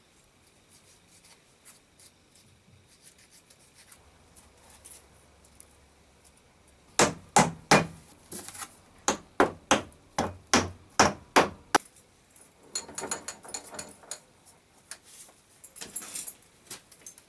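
Hammer tapping: after a quiet start with faint clicks, about a dozen sharp strikes come in quick succession over some five seconds, followed by lighter knocks and clicks.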